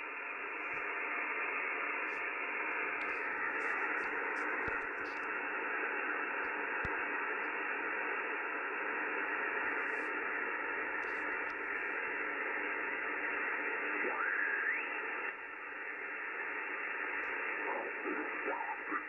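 Icom IC-7300's speaker giving a steady hiss of 80 m band noise in LSB, the operator's S6 urban interference, as the VFO is tuned across the band. Faint carrier tones sit in the noise, and a whistle rises in pitch about fourteen seconds in.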